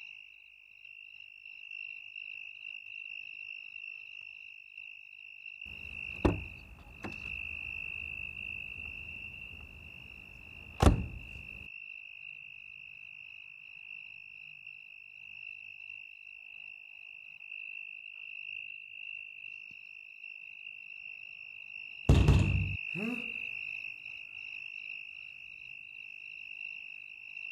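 Crickets chirring steadily in a high continuous trill. Sudden loud knocks cut in about six and eleven seconds in over a low rumble, and a heavy thud about twenty-two seconds in trails off falling in pitch.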